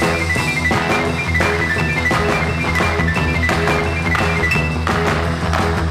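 Background music with a steady drum beat, a low bass line and a high stepping melody on top.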